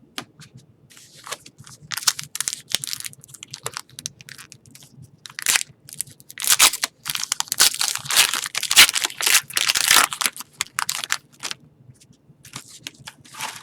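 Foil wrapper of a trading card pack crinkling and tearing as it is pulled open by hand. The crackling comes in irregular bursts and is densest in the middle.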